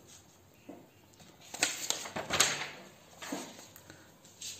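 A handful of sharp knocks and clicks, with a loud cluster of them about one and a half to two and a half seconds in.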